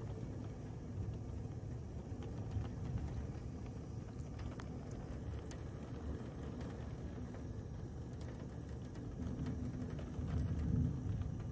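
Heavy thunderstorm rain with gusty wind, the wind rumbling low on the microphone; it swells about ten seconds in.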